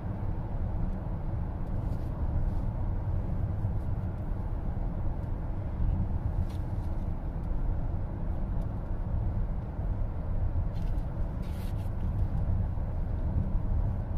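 Steady low road and tyre rumble heard inside the cabin of a moving car, with a few faint clicks.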